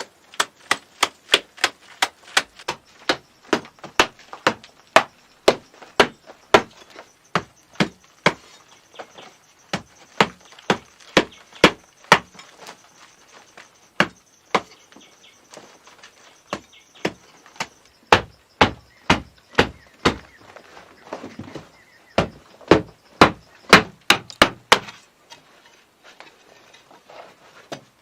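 Steady series of sharp blows of a tool striking wood, about two a second, with a few short pauses, as in chopping or hammering during a build.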